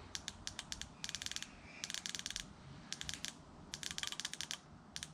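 Fuel injector from the Subaru engine clicking in quick runs as it is pulsed with battery power, about six bursts of rapid sharp ticks. The injector is partly clogged and being cleaned: no fuel has dripped from it yet.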